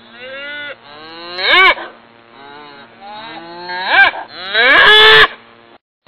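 Cattle mooing: a run of drawn-out calls that rise and fall in pitch, the last and loudest held for nearly a second before it cuts off abruptly.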